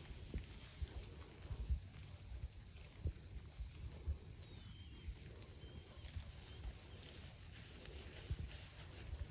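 Mini Zebu cattle grazing close by: irregular soft low thumps and rustles as they crop the grass and shift their hooves, over a steady high insect chorus. A bird chirps faintly about halfway through.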